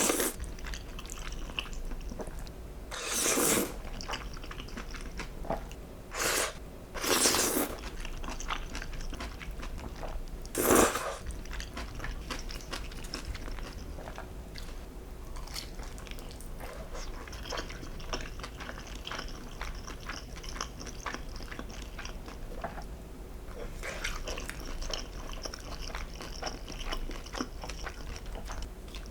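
Close-miked eating sounds: steady chewing and crunchy bites of food, with four louder crunches or slurps in the first eleven seconds.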